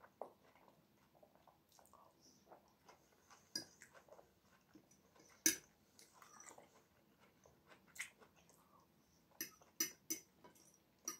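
A person eating quietly: a fork clinking and scraping against a plate, with soft chewing between. There are several sharp clinks, most of them bunched together near the end.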